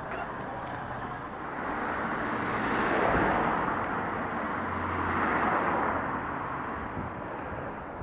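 Street traffic: cars passing by, their tyre and engine noise swelling twice, about three seconds in and again around five and a half seconds in.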